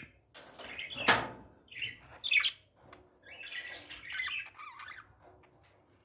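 Pet budgerigars calling: a few short, sharp chirps and squawks in the first two and a half seconds, the loudest about a second in, then a run of warbling chatter lasting about a second and a half.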